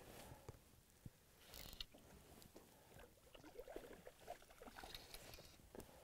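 Near silence, with a few faint clicks and rustles.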